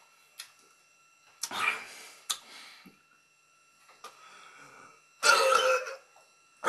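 A man making deliberately gross mouth and throat noises over his food: a click, a short rough burst about one and a half seconds in, and a louder, longer one about five seconds in.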